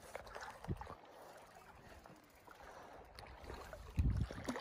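Wind and water noise at the lake's edge, with a low thump about a second in and a louder low bump near the end, such as a gust or handling against the microphone.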